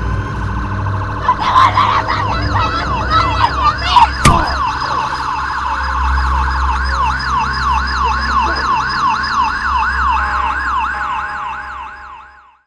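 Police siren on the yelp setting, sweeping up and down about three times a second over a steady low rumble. A single sharp bang comes about four seconds in, and the sound fades out near the end.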